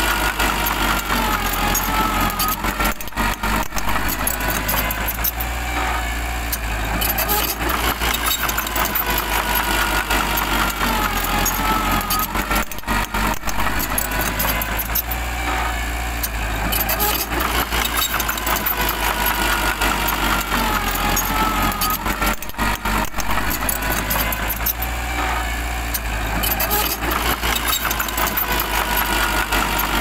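Small crawler bulldozer's engine running steadily under load, with a wavering high tone over it. The same sequence of sound recurs about every ten seconds.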